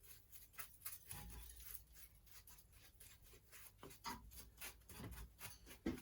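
Faint scratchy rubbing and ticking of swarf being cleaned off the milling machine, with a few soft knocks, the loudest just before the end.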